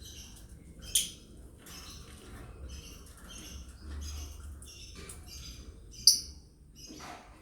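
Lovebirds chirping in a rapid stream of short, high calls, with two loud sharp squawks, one about a second in and one about six seconds in.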